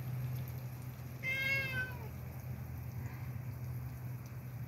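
A domestic cat meows once, a short, high meow about a second in.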